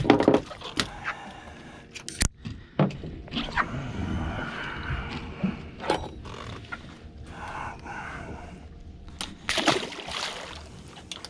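Knocks, clicks and scrapes of fishing tackle and hands on a fiberglass boat deck, with water sloshing at the hull. About ten seconds in comes a short splash as the rig goes over the side into the water.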